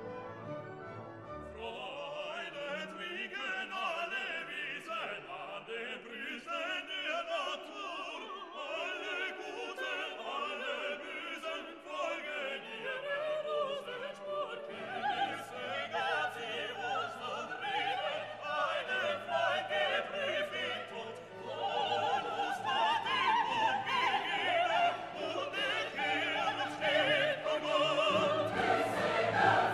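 Classical background music: an orchestra with operatic singing, growing louder about two-thirds of the way through.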